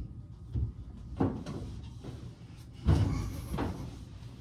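Heavy thumps and knocks from a laundry appliance loaded with wet clothes being shifted, four in all, the loudest about three seconds in.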